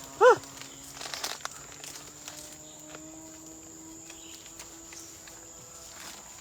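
Forest ambience with a steady high insect buzz. Scattered rustling and a few steps on the trail, and a short rising-and-falling pitched call just after the start that stands out above the rest.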